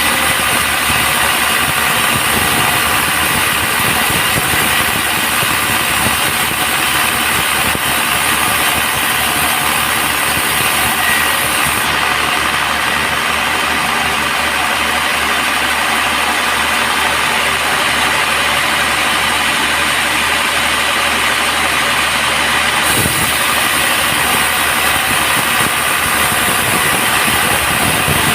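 Band sawmill running steadily: a constant loud machine drone with a steady hum.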